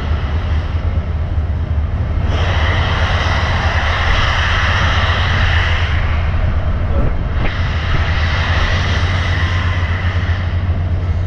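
Steady low rumble and rushing noise of a moving train, growing brighter and louder suddenly about two seconds in, dipping briefly near the middle, then coming back.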